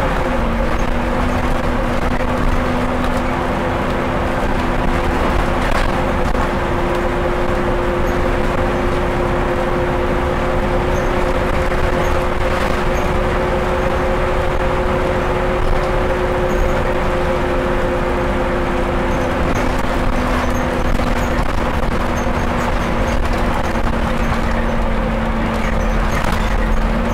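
Scania N230UD double-decker bus heard from inside while under way: the engine and driveline run steadily, with a hum of several held tones over road and tyre rumble. One of the tones fades out about two-thirds of the way through.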